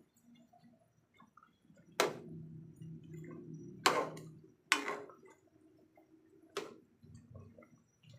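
Four sharp clinks, like a cooking utensil or lid knocking against a pot, about two, four, five and six and a half seconds in, with a low hum lingering after each.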